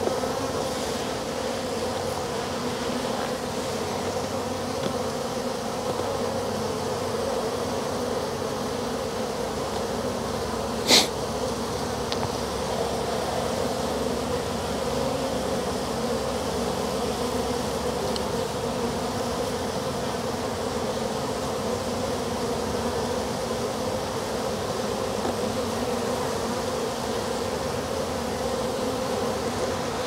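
Steady buzzing hum of a clustered honey bee swarm, with its strongest pitch around 500 Hz. A single sharp click cuts in about eleven seconds in.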